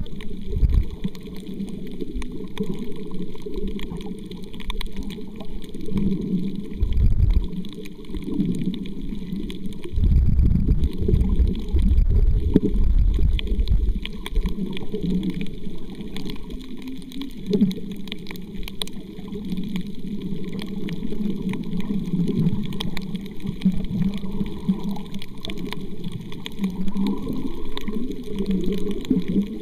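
Muffled underwater water sound picked up by a submerged camera: a low, rumbling wash with a few stronger surges and a faint fine crackle.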